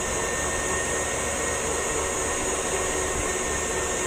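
KitchenAid Artisan stand mixer running steadily, its motor giving a constant whir while it mixes cookie dough.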